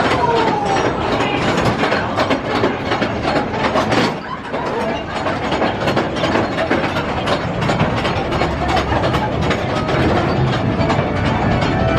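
Continuous dense mechanical rattling and clicking, with a brief dip about four seconds in.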